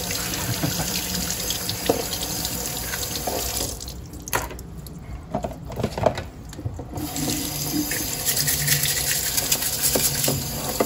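Kitchen faucet running into a sink over a crab being rinsed. The water stops for about three seconds in the middle, leaving a few knocks, then runs again while a brush scrubs the crab's shell.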